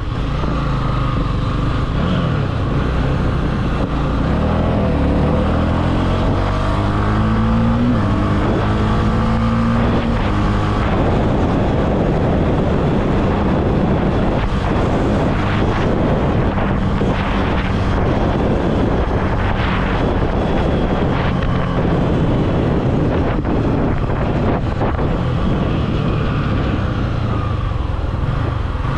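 Honda CB300F single-cylinder motorcycle engine running while riding, with wind rushing over the microphone. The engine note climbs as the bike accelerates from about five to ten seconds in, then levels off.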